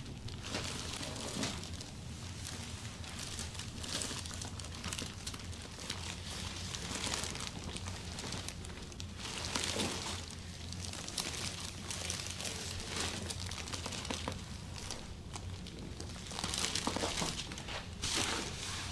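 Hands rubbing and kneading during a massage, a soft rustling and brushing of skin and clothing that swells and fades with each stroke every second or two.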